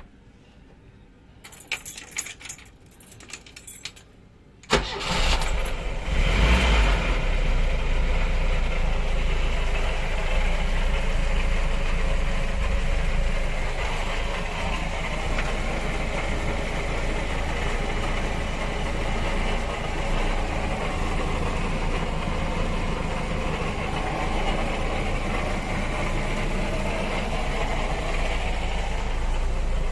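Princess 25 motor cruiser's engine starting: a few rattling clicks, then about five seconds in it fires and catches with a sudden surge, settling into a steady, deep idle.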